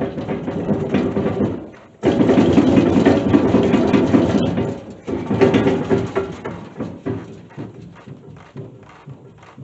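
A 3/4-inch impact wrench hammering on a bush hog blade bolt in three runs, with a steady motor hum under the rattle. The middle run is the loudest, and the last one fades out.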